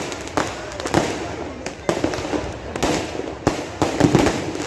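Fireworks going off in an irregular volley of sharp bangs, several a second, over a continuous crackling haze.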